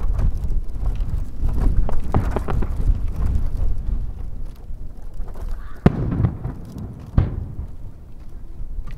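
Aerial firework shells bursting: scattered crackling pops, then two sharp bangs about six and seven seconds in, the first the loudest, over a steady low rumble.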